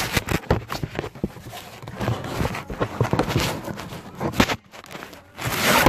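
Boxing gloves hitting a heavy punching bag in quick, irregular thuds, close to the microphone, with a louder rush of noise near the end.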